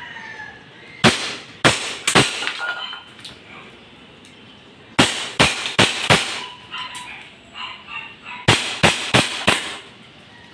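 WE Hi-Capa Dragon 5.1 gas blowback airsoft pistol firing three quick strings of four shots each, a few seconds apart, each a sharp pop with the slide cycling. The pistol runs short stroke on a long stainless guide plug, which makes it cycle faster.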